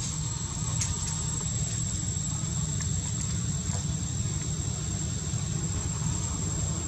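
Steady forest ambience: a continuous high insect drone over a low rumble, with a few faint clicks.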